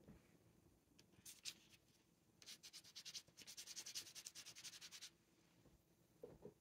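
Faint, quick scratchy rubbing, about ten strokes a second, lasting a little under three seconds, after a couple of brief scratches.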